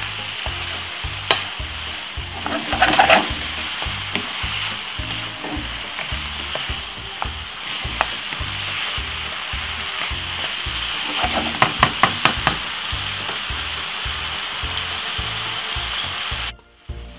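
Minced beef with onions and peppers sizzling in a frying pan as the meat browns, stirred with a wooden spoon that scrapes and knocks against the pan in short clusters about three seconds in and again around eleven to twelve seconds in. The sizzle drops out briefly near the end.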